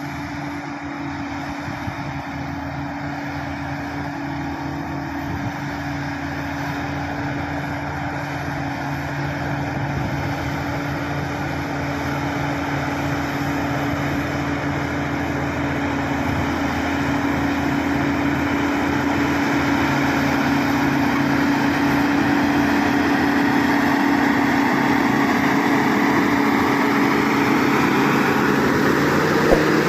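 Diesel engine of an SD16 crawler bulldozer running steadily under load, growing gradually louder.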